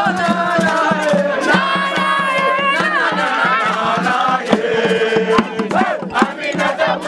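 A group of voices singing and chanting together, several pitches overlapping, with frequent sharp percussive hits.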